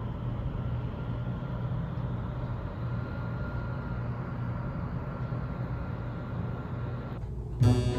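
Steady low rumbling hum with a faint thin tone above it, starting and stopping abruptly, like a running vehicle heard from inside.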